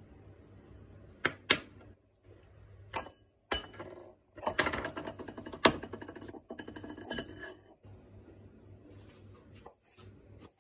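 Fine metal mesh strainer clinking against the rim of a porcelain bowl. A few separate clicks come first, then a quick, dense clatter that lasts about three seconds.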